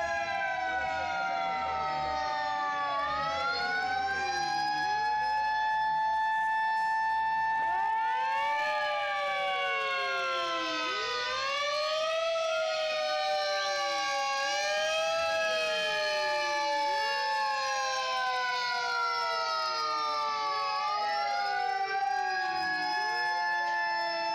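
Sirens of several Isuzu fire engines wailing together, each rising and falling in pitch out of step with the others, so the wails overlap and cross.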